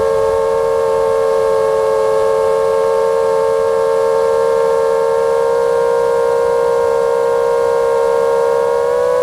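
Five-inch FPV quadcopter with T-Motor F60 Pro II 2207 2500Kv brushless motors and three-blade props, whining steadily in cruise. The pitch rises a little near the end.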